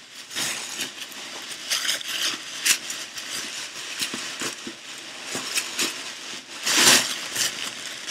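Tissue paper and plastic wrapping rustling and crinkling as a packed item is unwrapped by hand, with a louder crinkle near the end.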